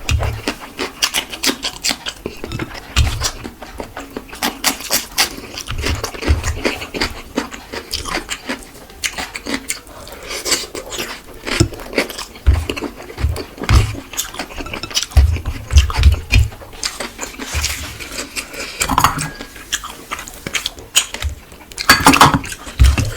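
Close-miked eating sounds: wet chewing and lip smacking, a dense run of short smacks and clicks with soft low thumps.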